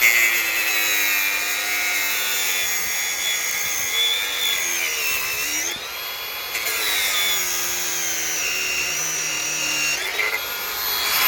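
Electric angle grinder running and cutting into a chainsaw. Its high whine sags in pitch as the disc bites, most deeply around the middle, then recovers.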